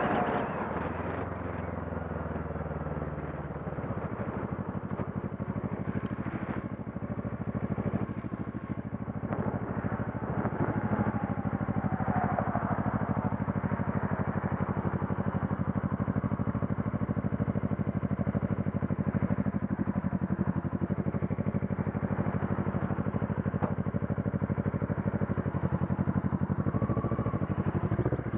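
Motorcycle engine running at low speed, its firing pulses steady and even. Wind rush over the bike fades in the first few seconds as it slows.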